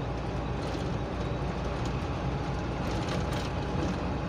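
Steady engine and road noise heard inside a truck cab while driving at highway speed.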